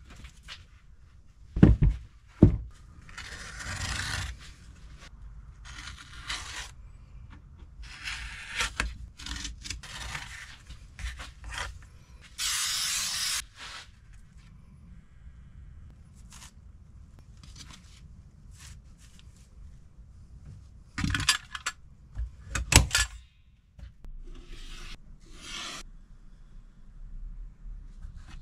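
Irregular scraping and rubbing as materials are worked by hand. There are two sharp knocks about two seconds in, a steady hiss lasting about a second around the middle, and a cluster of loud knocks near the end.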